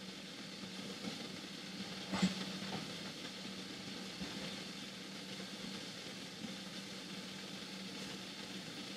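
Chinese okra sizzling softly in a partly covered frying pan, a steady low hiss with a low hum underneath and one light knock about two seconds in.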